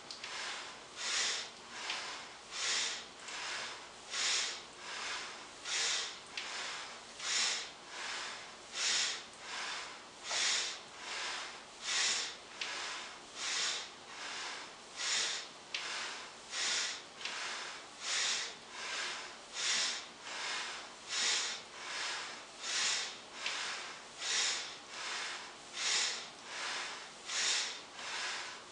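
A man's rhythmic breathing paced to repeated deep squats: air drawn in through the nose on each descent and breathed out on each rise. There is one breath about every 0.8 seconds, in an even rhythm.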